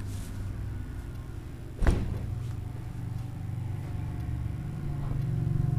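A single sharp crack about two seconds in from a chiropractic neck (cervical) adjustment thrust, over a steady low rumble.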